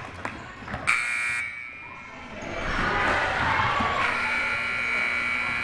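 Gymnasium scoreboard buzzer sounding: a short blast about a second in, then a longer steady blast starting about four seconds in, with voices in the hall between.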